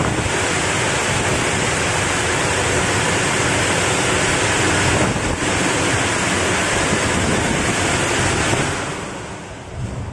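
Cleanroom air shower blowing: its fans drive jets of air through the nozzles in a loud, steady rush. The rush dies away over the last second or so.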